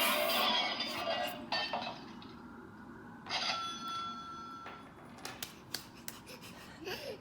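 Toy sound machine playing a telephone-ring sound effect through its small speaker, starting about three seconds in and lasting about a second and a half, after the tail of a previous effect fades. A few sharp clicks follow near the end.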